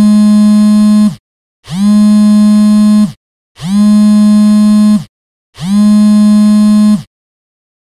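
Mobile phone buzzing for an incoming call: four long, loud buzzes with short gaps between them, each rising in pitch as it starts and dropping as it stops, like a vibration motor spinning up and down. The last buzz stops about seven seconds in.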